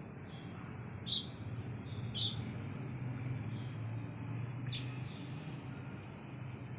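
Sparrows chirping: short, sharp chirps, the loudest about a second in, at about two seconds and near five seconds, with fainter chirps between, over a steady low hum.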